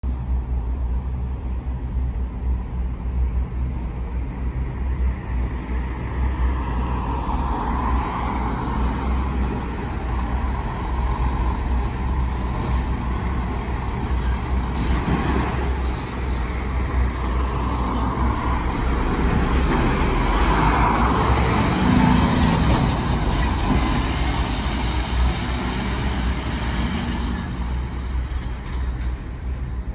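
Scania articulated lorry's diesel engine running as the lorry pulls out of a yard and drives off along the road. It grows louder through the middle, loudest a little past twenty seconds in, and eases off near the end as it moves away.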